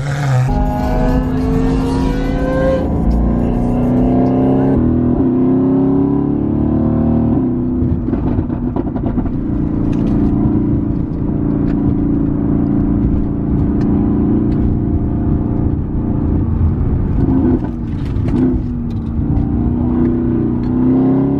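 Car engine accelerating hard, its pitch climbing in several rising steps through the gears over the first seven seconds, then running at a steady pitch at cruising speed, heard from inside the car.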